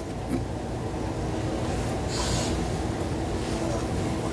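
Steady low hum of studio room noise, with one short breath close to a microphone about two seconds in.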